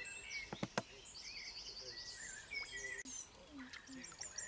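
Small birds singing and chirping, with repeated high trills and short sliding calls, over a faint outdoor background. A few quick sharp clicks sound about half a second in.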